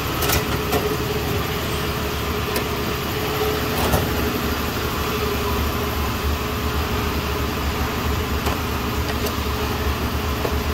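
Steady mechanical hum of workshop machinery running, with a few sharp clicks and clinks of hand tools in the first few seconds as a toolbox drawer is worked and needle-nose pliers are taken out.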